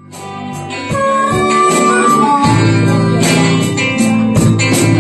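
Live rock band with electric guitars, bass guitar and drums playing a slow song intro, fading in from silence in the first second. A bending lead line sounds over the guitars early on, and the bass and full band fill in about two and a half seconds in.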